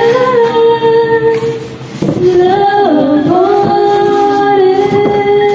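A female voice singing long held notes, sliding down between pitches in the middle, with a short break about two seconds in.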